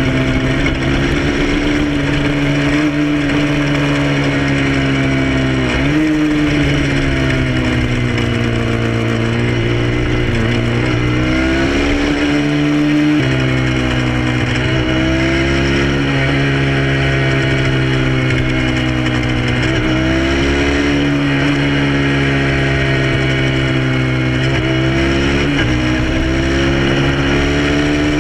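Motorcycle engine running at road speed, its pitch dipping and rising again several times, over a steady rush of wind.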